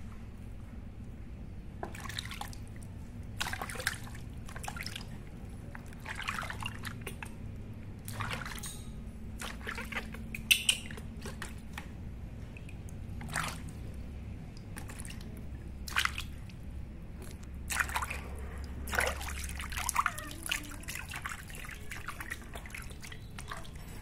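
Bath water splashing and dripping in many short, irregular bursts while a baby monkey is bathed.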